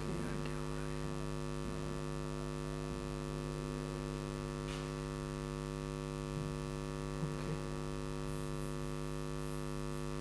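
Steady electrical mains hum, a low even buzz, with a few faint soft taps partway through.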